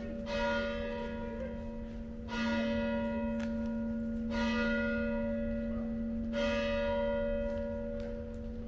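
A single church bell struck four times at a slow, even pace, about every two seconds. Each strike rings out with bright overtones that fade, over a deep hum that carries on between strikes.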